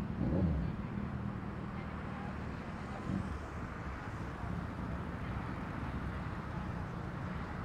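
Suzuki Hayabusa's inline-four engine idling steadily, with a short rev blip about half a second in and a smaller one around three seconds in.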